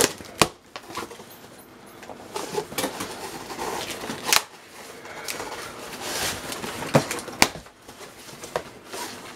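Cardboard packaging being handled: scraping and rustling, with a few sharp knocks. One knock comes about four seconds in and two come close together about seven seconds in.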